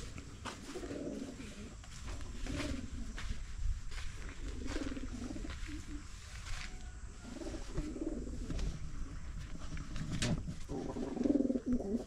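Domestic pigeons cooing over and over as they squabble, with a few short sharp sounds in between.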